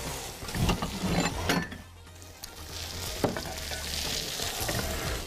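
Beef shank slices (osso buco) searing in a hot cast-iron skillet, with a steady sizzle. A few sharp knocks of metal tongs on the pan come through the sizzle.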